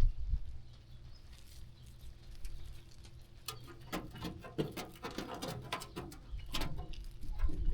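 Sheep grazing and moving close to the microphone: a quick run of crunching, rustling clicks through the second half, over a low rumble.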